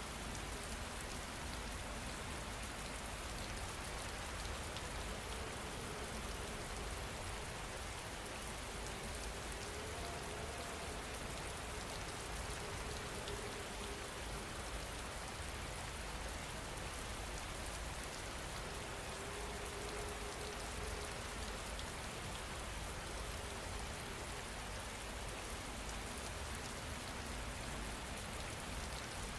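Steady rain falling, an even patter of raindrops on a surface with no change in strength.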